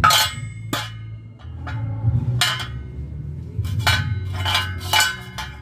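Metal parts being handled and tapped: about eight sharp metallic clinks and knocks at irregular intervals, some with a brief ringing tail, over steady background music.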